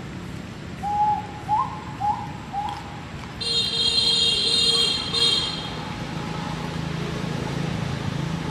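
Four short hooting calls in quick succession, then a vehicle horn sounding for about two seconds, briefly broken near its end, over a steady low hum of traffic.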